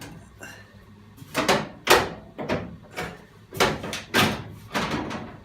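Steel floor pan of a classic Mini being knocked into place in the car's body: a run of about seven loud metal clunks, roughly two a second.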